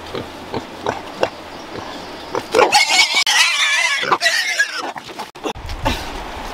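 Young pigs grunting a few times, then one pig giving a loud, wavering squeal that lasts about two seconds.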